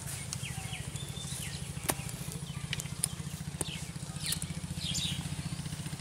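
Outdoor rural ambience: birds chirping over a steady, fast-pulsing low hum, with a few sharp clicks.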